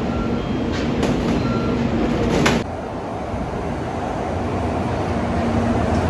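Busy station ambience with a few brief high tones for the first couple of seconds. It then gives way to a Shinkansen bullet train pulling in alongside the platform: a steady rushing noise, mostly low, growing slowly louder as the cars slide past.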